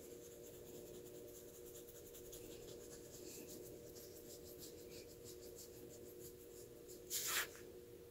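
Fingers scratching and rubbing a small dog's fur: a quick run of faint scratchy strokes over a steady low hum. A brief, louder rush of noise comes about seven seconds in.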